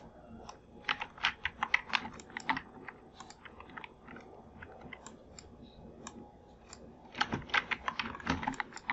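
Computer keyboard keys tapped in two quick runs, about a second in and again near the end, with a few scattered clicks in between.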